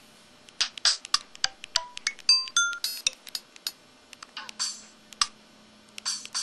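Samsung SCH-E110 mobile phone playing its built-in sound effects and key tones: a quick run of short electronic blips and clicks, some of them brief beeps at a few different pitches, then a few more scattered blips.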